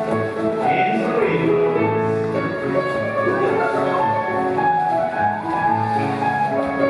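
Scottish country dance music playing a reel, with a steady beat.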